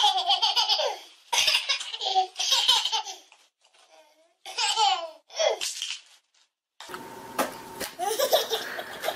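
Toddler laughing in repeated high-pitched bursts of giggles with short breaks between them. About seven seconds in a steady room hiss starts, with more child laughter over it.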